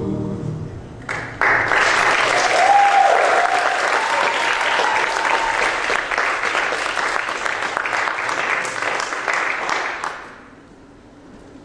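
Audience applauding for about nine seconds, with a voice cheering briefly a few seconds in, then the clapping dies away. Music fades out just before the applause starts.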